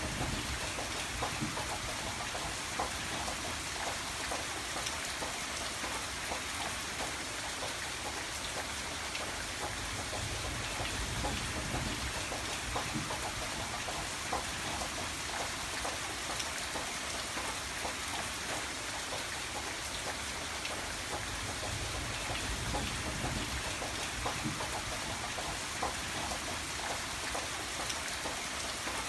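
Steady rain falling, with many individual drops ticking on a surface through an even hiss.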